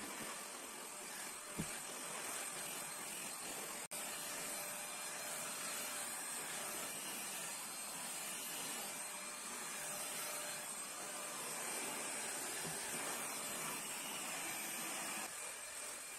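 Vacuum cleaner running steadily, with a short knock about one and a half seconds in and a momentary break about four seconds in.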